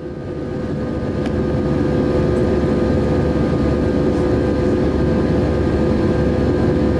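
Steady cabin noise inside an Airbus A320 in flight: the drone of the engines and rushing airflow, with a steady humming tone. It swells up over the first two seconds, then holds level.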